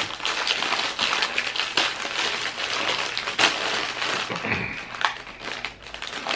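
Clear plastic cookie packaging crinkling and crackling as it is handled and opened to pull a cookie out.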